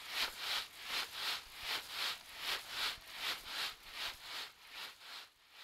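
Coffee beans swished rhythmically back and forth in a shaking or sweeping motion, about three strokes a second, fading out near the end.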